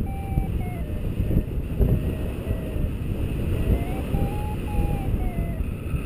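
Wind buffeting the microphone in flight under a paraglider, a steady low rumble with gusts. Over it a paragliding variometer beeps in short tones that step down in pitch, hold, then rise about two-thirds of the way through and fall again near the end; the pitch follows the rate of climb.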